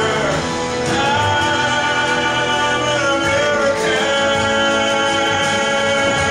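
Music with singing, in long held notes.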